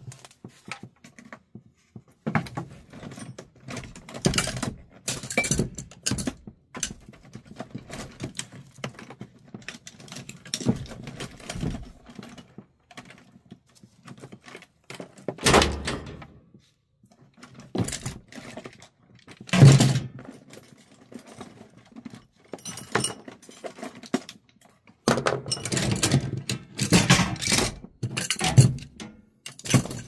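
Irregular knocks, thunks and clinks of hand work at an open furnace cabinet, as a multimeter and its test leads are set up against the sheet-metal panel. The loudest knocks fall in the second half, several close together near the end.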